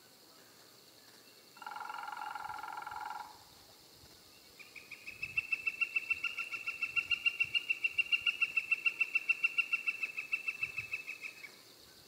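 Northern flicker giving its long call: a rapid, even series of repeated notes, about seven a second, lasting some seven seconds, growing louder and then fading. Before it, a steady held tone lasting about a second and a half.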